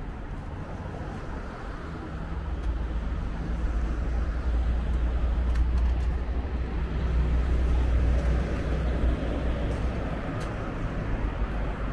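Street traffic noise with a passing motor vehicle: a deep rumble builds up, is loudest in the middle, then eases off.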